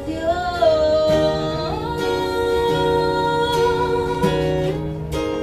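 Live acoustic song: a voice holds the last sung word, "acción", then acoustic guitar chords ring on alone in a few strums.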